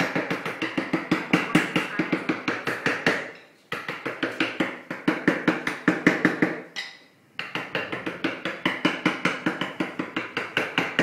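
Rapid, even tapping on wood, about six knocks a second, in three runs of roughly three seconds each with brief pauses between.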